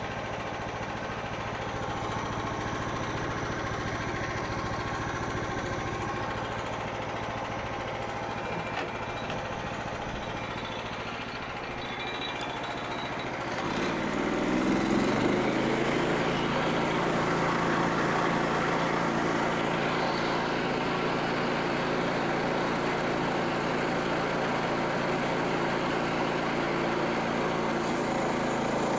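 Gas engine of a Frontier OS27 portable bandsaw mill running steadily at a low speed, then about halfway through revving up to a higher, louder steady note.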